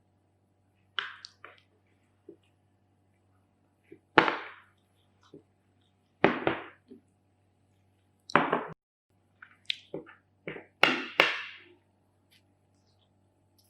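About eight short, sharp knocks or crunches at irregular intervals, each dying away within about half a second, the last few coming close together near the end, over a faint low hum.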